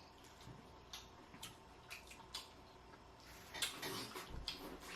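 Faint eating sounds: scattered clicks and smacks of chewing seafood, growing denser about three and a half seconds in.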